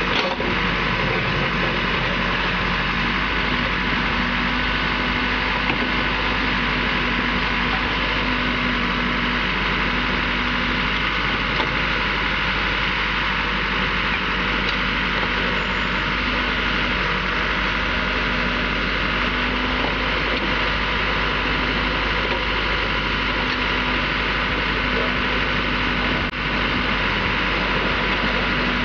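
Backhoe loader's diesel engine running steadily, a constant drone as the bucket digs into broken rock.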